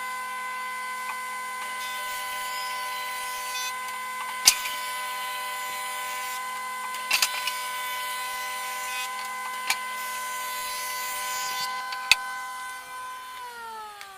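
Electric woodworking power tool motor running with a steady high whine, with a hiss and a few sharp knocks from the wood being worked. Near the end it is switched off and its pitch falls as it winds down.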